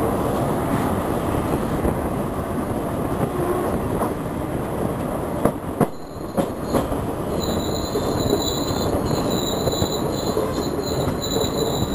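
Passenger train coaches running on a curve, heard from the coach: a steady rumble of wheels on rail with a few sharp clacks about halfway. Then a high thin whine sets in and holds on.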